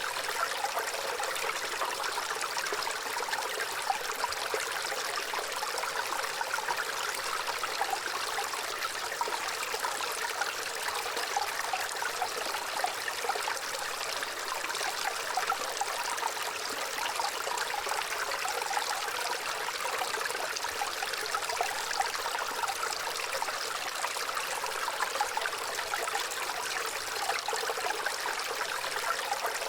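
Gentle running water, a small stream trickling and babbling steadily without pause.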